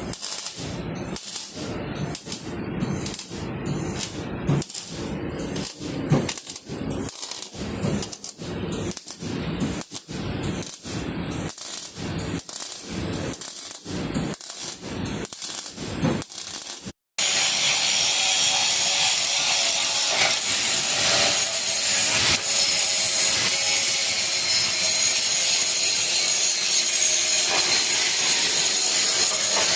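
Rhythmic back-and-forth strokes of a hand tool on a workpiece, about one and a half a second, like hacksawing or filing. After a short break about seventeen seconds in, a steady, louder hissing and grinding noise from a power tool or welding work runs on.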